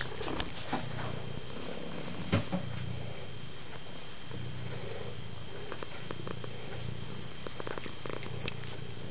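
Domestic tabby cat purring close to the microphone, the purr pulsing roughly once a second with its breathing. A sharp click comes a little over two seconds in.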